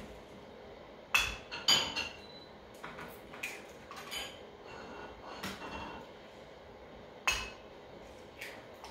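Cups and dishes clinking and knocking on a table: about eight sharp clinks spread out, several with a short ringing tone. The loudest come just after a second in, just before two seconds and past seven seconds.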